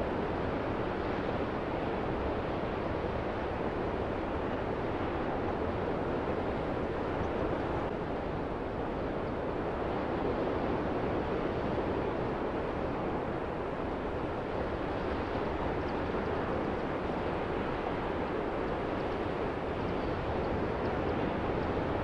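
Ocean surf breaking and washing up the beach: a steady rush of noise with no separate crashes standing out.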